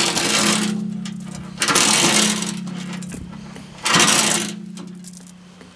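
Hammer striking the cast-iron saddle of a Brown & Sharpe horizontal milling machine three times, about two seconds apart, each blow ringing and fading away: driving the saddle off the knee's ways.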